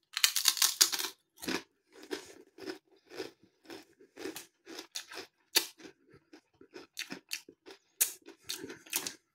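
A crinkle-cut potato crisp being bitten and chewed: a dense burst of crunching at first, then crunchy chewing about twice a second.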